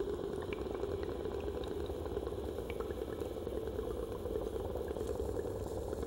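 Steady wash of choppy sea water splashing around the boat, with wind rumbling on the microphone and small scattered ticks of spray.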